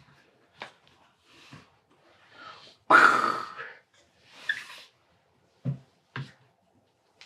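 Hard drives and cables being handled on a wooden desk: scattered light knocks and dull thuds, with a loud short rush of noise about three seconds in and a softer one a second later.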